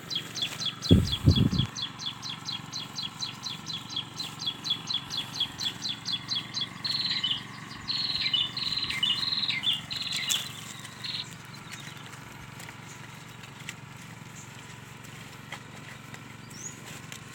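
A small songbird calling: a fast, even run of high chirps, about five a second, for some six seconds, then a short phrase of louder, varied notes. A low thump about a second in.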